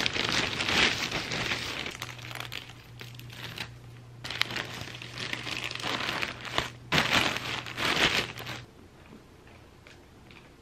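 Plastic poly mailer bag crinkling and rustling in irregular surges as hands grip and handle it. The crinkling stops near the end, leaving faint room tone.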